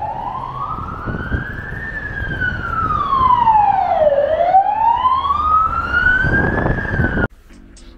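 Emergency vehicle siren wailing: a slow rise and fall in pitch, about two seconds up and two seconds down, twice, over low street rumble. It cuts off suddenly near the end.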